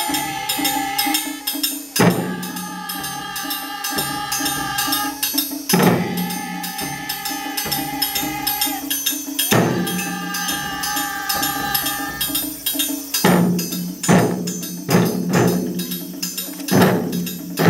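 Taiko drum ensemble playing a fast, even rhythm. About every four seconds a high ringing tone is held for a couple of seconds over the drumming. From about 13 seconds in the tones stop and heavy single drum strokes stand out.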